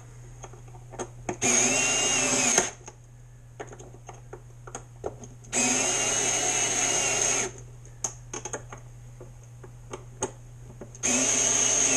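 NoCry cordless electric screwdriver running in three short bursts of one to two seconds each, driving the boat strut's mounting bolts into finger-held nuts. Each burst is a steady whine that cuts off suddenly, with light clicks of handling in between.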